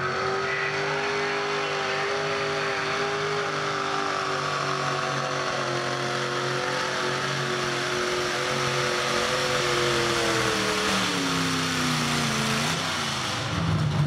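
Mini two-wheel-drive pulling truck's engine held at high revs under full load as it drags a weight-transfer sled down the dirt track, a steady high engine note. About eleven seconds in, the revs fall away as the pull ends.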